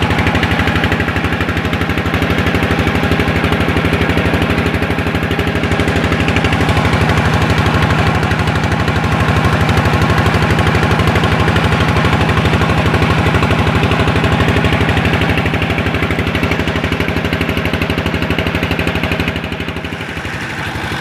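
A small engine running steadily at a fast, even beat, with a brief drop in level near the end.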